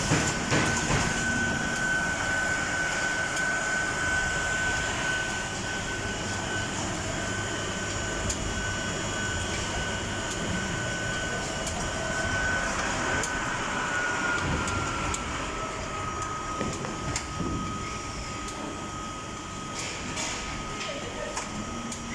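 Automatic film sealing and heat-shrink wrapping machine running, a steady mechanical noise with a high whine that drops slightly in pitch a little past the middle, and a few sharp clicks.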